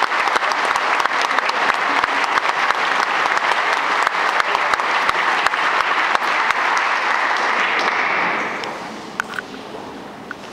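Audience applauding steadily, dying away about eight seconds in; a few sharp clicks follow.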